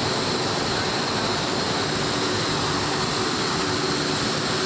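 Steady industrial roar of a blast furnace during casting, with a constant high-pitched whine over it.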